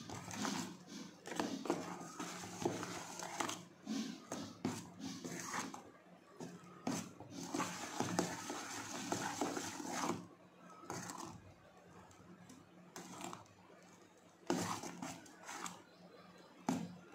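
Thick dahi vada batter being beaten round a steel bowl: irregular wet slaps and squelches, sometimes with a light scrape on the metal. The beating thins out for a few seconds past the middle and picks up again near the end.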